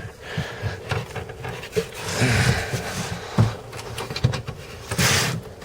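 A man breathing heavily, with two loud breathy exhales about two seconds in and near the end, over a few sharp knocks and bumps from handling things in a small cabin.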